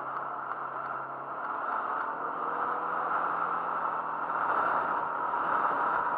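Kymco MXU 300R quad's single-cylinder four-stroke engine running as the quad is ridden along a dirt track and picks up speed. A steady rush of ride noise lies over the engine, growing louder from about halfway through.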